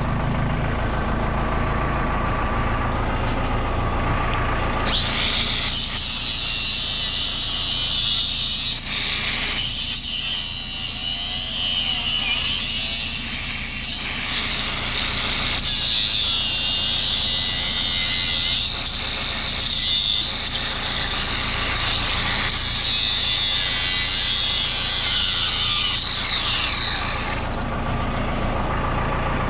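Backhoe's diesel engine working under load. From about five seconds in, a harsh high-pitched grating noise joins it, like machinery breaking up and scraping the old court surface, and it changes abruptly several times.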